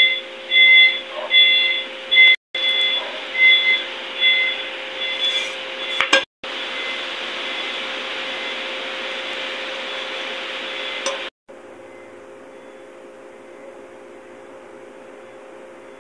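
Repeated electronic beeps, about two a second, over a steady low hum; the beeping stops about six seconds in, leaving a steady hiss that drops in level about eleven seconds in.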